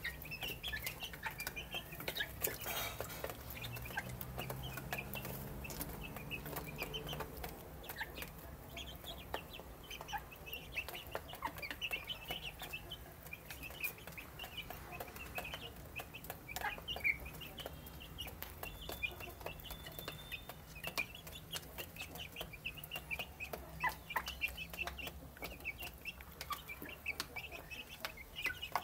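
A small flock of young chickens calling as they feed, with a steady stream of short, high peeps. Light clicks of beaks pecking at the feed dish are scattered through it.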